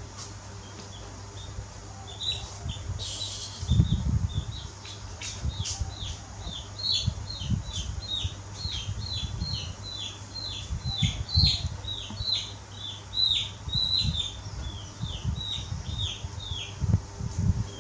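An animal chirping over and over: short, high notes that each drop in pitch, coming about two to three a second, with low thumps and rustling underneath.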